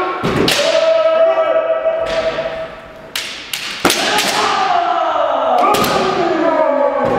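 Kendo practice: several players' kiai shouts, long drawn-out cries that fall in pitch and overlap, punctuated by sharp cracks of bamboo shinai strikes and thuds of stamping feet on a wooden gym floor, with the hall's reverberation after each hit.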